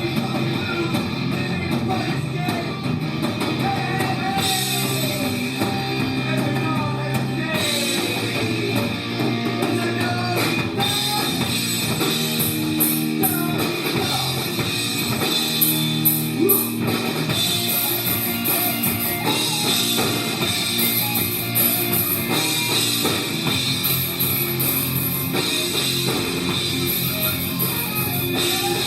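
Rock music: a band playing a song with guitar and drum kit at a steady level.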